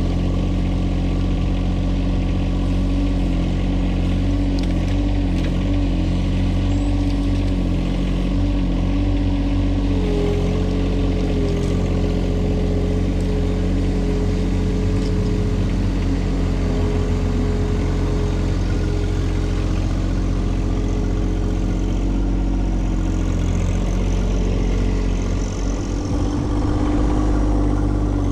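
Compact tractor engine running steadily under work, with a higher steady whine that comes in about ten seconds in and stays.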